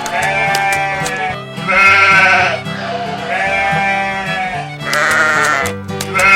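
Background music with repeated animal bleating over it, about one bleat every second and a half.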